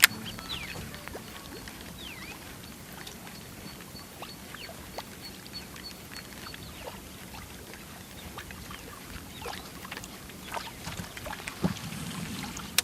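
Topwater lure being worked across the water: scattered light splashes and clicks over a faint steady hiss. A faint high pulsing tone runs through the first few seconds.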